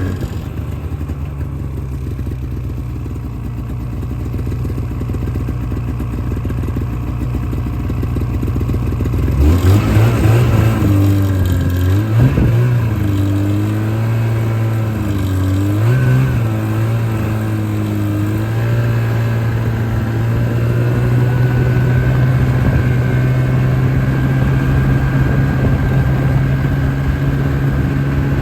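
An engine running: it drones steadily at first, then about ten seconds in it speeds up, its pitch wavering up and down for several seconds before it settles into a steady, slightly louder run.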